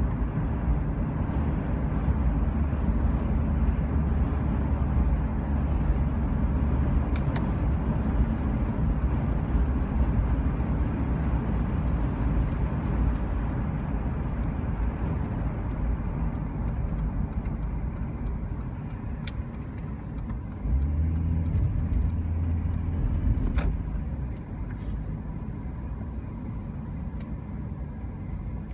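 Motor vehicle driving: steady engine and road rumble, with faint regular ticking through the middle stretch and a louder low hum near the end that cuts off sharply.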